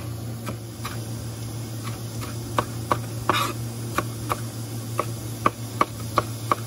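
Knife dicing bell peppers on a plastic cutting board: a run of sharp taps of the blade on the board, about three a second.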